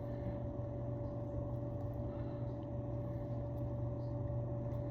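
Steady mechanical hum of a small motor or fan, with a low drone and a constant thin whine above it.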